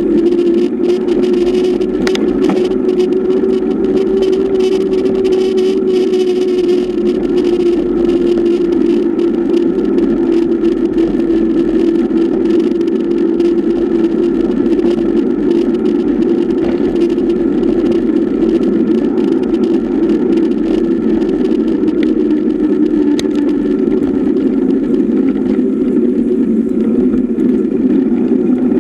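Mountain bike rolling fast on asphalt, heard through a camera mounted on the bike: a loud steady hum from the tyres and drivetrain that drops a little in pitch in the last few seconds, with wind rush and small rattles of the camera mount.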